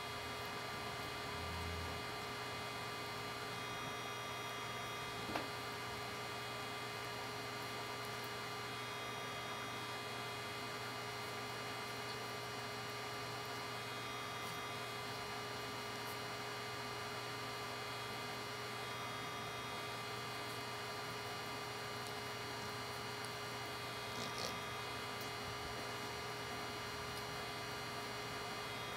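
Steady electrical hum made of several fixed tones over a low hiss, with a faint click about five seconds in and a couple of soft ticks near the end.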